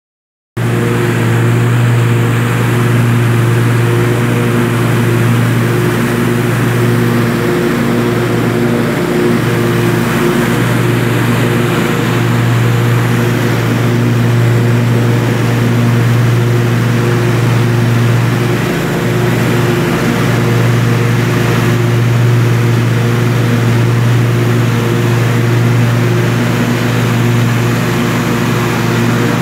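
Scag V-Ride stand-on mower's engine running steadily at working speed with an even, droning hum.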